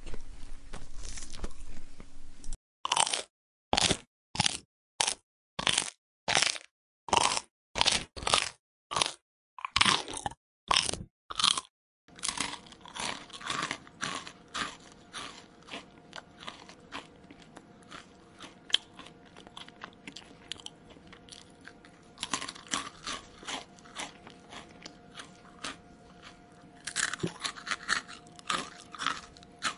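A person chewing crunchy food close to the microphone. It starts with steady crunching, then comes a run of about fifteen loud separate crunches, roughly one and a half a second, each cut off by silence. From about twelve seconds in the chewing turns softer and continuous, with small crunches and mouth clicks over a faint steady hum, and gets louder again near the end.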